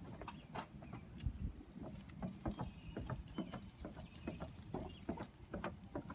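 Footsteps, roughly two a second, irregular short knocks of someone walking.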